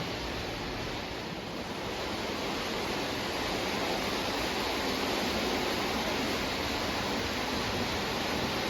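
O gauge toy train running on three-rail track, a steady rolling noise of wheels on rails that grows slightly louder about three seconds in.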